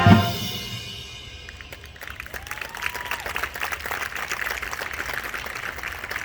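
Marching band brass and percussion cut off on a loud accented chord that rings out and fades over about two seconds, then the audience in the stands applauds with a whistle or cheer.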